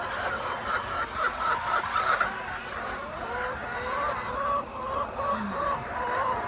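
A flock of chickens clucking and calling over one another, with short repeated calls in the second half.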